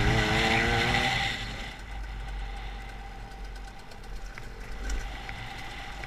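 KTM two-stroke enduro bike engine pulling under throttle with its pitch rising, then dropping to a quieter low-rev rumble about a second and a half in as the throttle is closed. A few light knocks come near the end.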